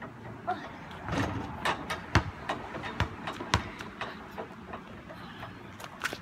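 Basketball being dribbled: a few hard bounces about two to three and a half seconds in, with lighter taps and scuffs between.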